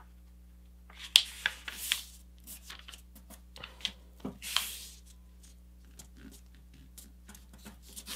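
Hands creasing and smoothing a folded sheet of tissue foil paper: irregular paper rustles and swishes with a few sharp crinkles, the loudest about a second in, near two seconds in and around four and a half seconds in.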